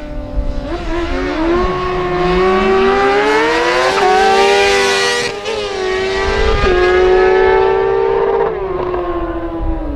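Racing motorcycle engines accelerating hard in a head-to-head sprint, the pitch climbing and then dropping sharply at each upshift, before falling away near the end.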